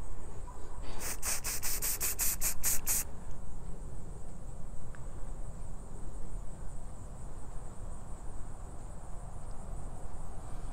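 Aerosol paint-and-primer spray can spraying in a quick series of short hissing bursts, about four a second for about two seconds, starting about a second in.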